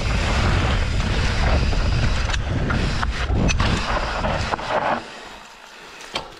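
Wind rushing over the microphone and a mountain bike rattling down a trail at speed, with a few sharp knocks from the bike. About five seconds in it drops away suddenly to a much quieter hush.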